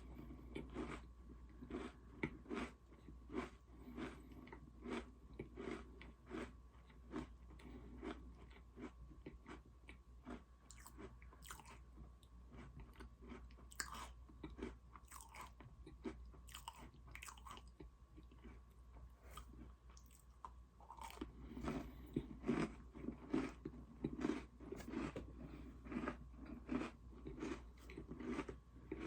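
Close-miked chewing and crunching of Oreo cookies, a steady run of crunchy chews at about two a second, growing louder near the end.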